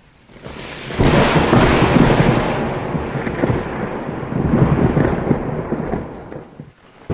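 Thunder: a loud clap about a second in, then a long rolling rumble that swells again midway and fades out near the end.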